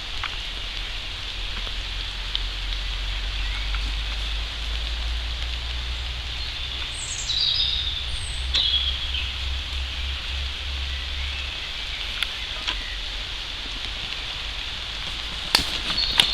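Outdoor woodland ambience with a steady hiss and a low rumble that fades about two-thirds of the way through. A bird gives a few short falling chirps in the middle, and a few sharp clicks come near the end.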